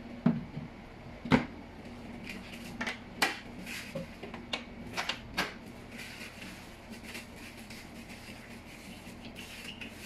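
Hard plastic clicks and knocks from handling a wet-and-dry vacuum's parts, the motor head pressed onto its drum and a bag of caster wheels handled. There are about eight sharp knocks over the first five or six seconds, the loudest just after the start and at about one and a half seconds, then only a faint steady hum.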